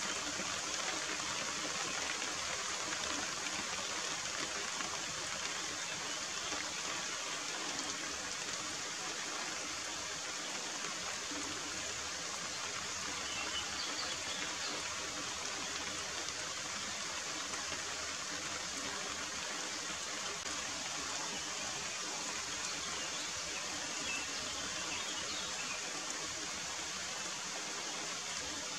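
Steady rain falling on grass and leaves, an even hiss without a break.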